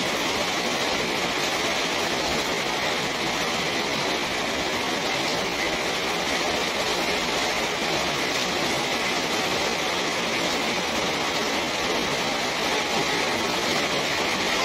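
Steady rain falling: an even hiss of drops that holds without a break.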